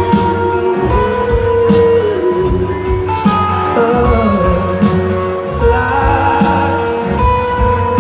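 Rock band playing live through a concert PA: drum kit, electric guitars and bass, with held notes and a gliding melody line over a steady drum beat, heard from the audience.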